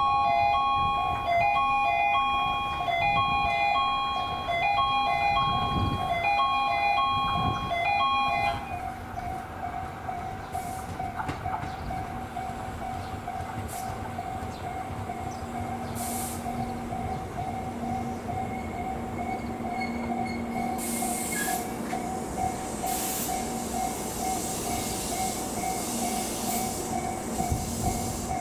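An electronic chime melody plays for about eight seconds. Then an electronic warning bell rings in a fast, steady pulse while a train comes closer, its running noise slowly building.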